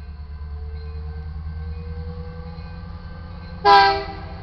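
Approaching diesel freight locomotives running with a steady low rumble, then a short, loud blast of the lead locomotive's air horn about three and a half seconds in, part of its sounding for the grade crossing. The lead unit is an EMD SD70MAC.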